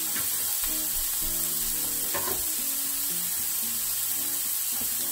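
Smashed ground-beef burger patties sizzling steadily in butter and their own fat on a hot cast-iron griddle, searing on their first side. Soft background music plays underneath.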